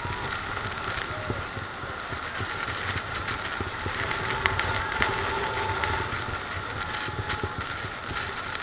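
Steady rushing roar of the Horseshoe Falls at Niagara blended with the tour boat's engine running as it holds position close under the falls. Scattered light taps and clicks on the microphone run through it.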